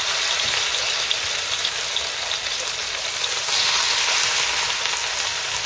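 Wet rice-paddy moss sizzling in hot oil in a wok: a steady hiss with small crackles, the moss freshly dropped into the oil.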